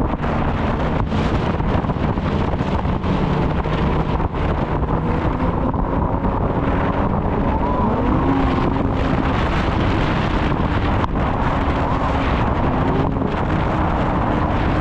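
Snowmobile engine running under way, its pitch rising and falling with the throttle, with wind buffeting the microphone.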